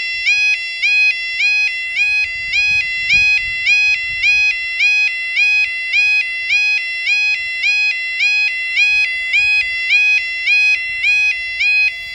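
Level crossing yodel alarm sounding continuously: a loud electronic two-tone warble that steps from a low note to a high note and back, repeating about twice a second.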